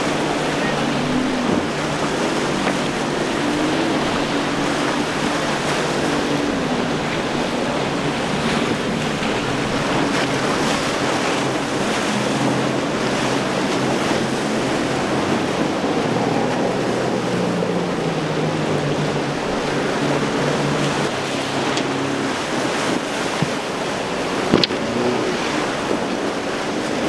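Boat motors droning and shifting in pitch over the steady wash of breaking waves at an inlet, with wind buffeting the microphone. A couple of brief sharp knocks come near the end.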